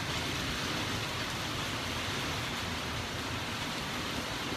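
Steady, even rushing noise of a thunderstorm outdoors, with no separate hits or thunder claps.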